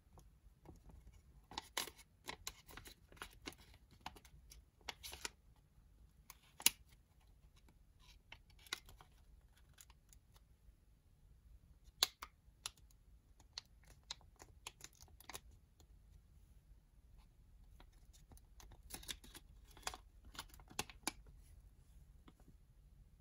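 Origami paper being folded and creased by hand: faint, scattered rustles and crinkles with a few sharper crackles as the layers are pressed flat, in clusters around two seconds in, at about five to seven seconds, at twelve seconds and again near the end.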